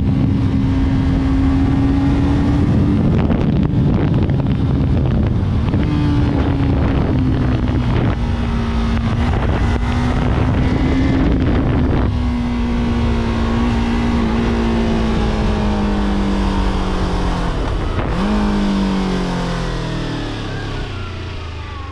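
Yamaha YZF-R3 parallel-twin engine running at a fairly steady pitch, with a few sudden changes in revs, then falling steadily in revs over the last few seconds as the bike slows. Wind rushes over the microphone throughout.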